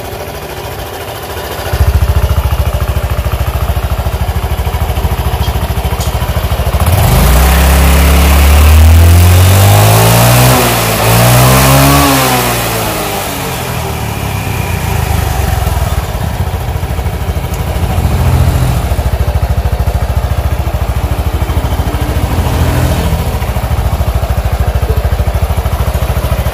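Honda Revo AT's small single-cylinder scooter engine idling on the stand, revved up once and let fall back, then blipped lightly twice. The knocking from its CVT is gone after new rollers and clutch dampers; only a slight drive-belt noise remains, which the mechanic calls normal.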